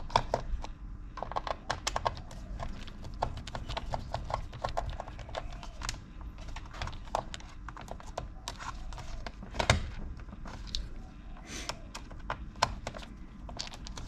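Small screwdriver and fingers clicking and tapping against the plastic case of a Corsair K95 mechanical keyboard while its case screws are undone: irregular light clicks, with one louder knock just before ten seconds in.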